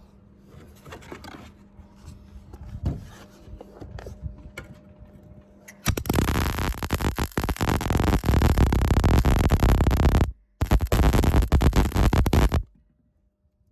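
MIG welder laying a weld: a loud, dense crackle lasting about four seconds, a brief break, then a second burst of about two seconds that stops suddenly. Before it, quiet knocks and scrapes of metal being handled.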